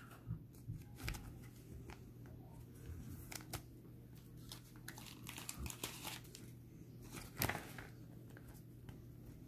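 Faint handling of glossy chrome trading cards: scattered soft clicks and rustles as cards are picked up, flicked and slid against the stack, the clearest a little past the middle, over a low steady hum.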